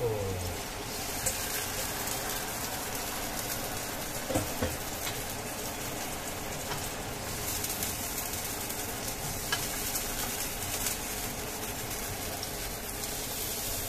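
A thickening sauce mixture poured into a hot wok over sautéed ginger, garlic and spring onion, then sizzling steadily with fine crackles.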